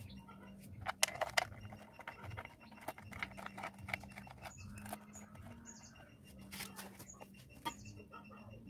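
Light clicks and taps of metal from hands handling and fitting the side cover of a Hero Honda motorcycle engine, with a cluster of sharper clicks about a second in, over a steady low hum.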